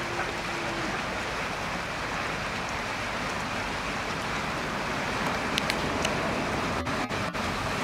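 Steady rushing of the swollen Bruche river running high past a stone bridge pier. A low steady hum drops out about a second in.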